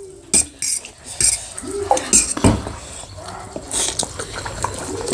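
Forks clinking and scraping against metal plates as instant noodles are twirled and eaten, in scattered irregular taps and scrapes.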